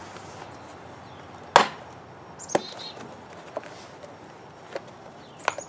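Sharp plastic clicks and snaps from a vinyl dryer vent hood as its louvered flap cover is unclipped and pulled off by hand: about five separate clicks, the loudest about a second and a half in.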